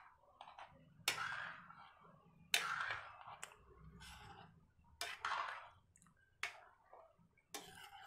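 A metal spoon stirring thin potato curry gravy in a metal pan: a run of short scraping, sloshing strokes, about one every second or so.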